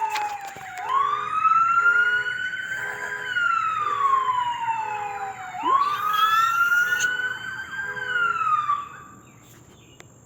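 A siren wailing, its pitch rising and falling in slow sweeps of a few seconds each, with a faint beeping pulsing about twice a second underneath. The siren winds down and stops about nine seconds in.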